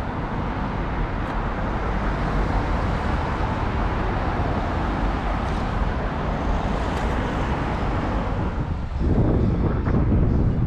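City street traffic noise: a steady rumble of passing cars, growing louder about nine seconds in.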